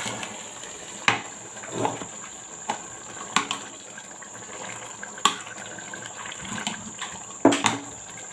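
Pot of egusi soup cooking with a steady liquid hiss, and about six sharp knocks against the pot, the loudest near the end.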